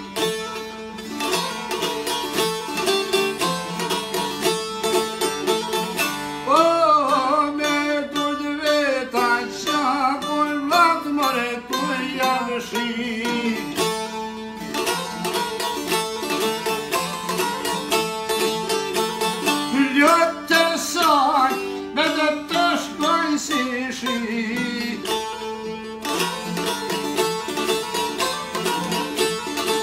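Albanian folk song: a man sings in long, wavering melodic lines over plucked long-necked lutes of the çifteli type, whose strings keep up a steady drone. The voice comes in about six seconds in, drops out, and returns about twenty seconds in, while the plucking carries on between.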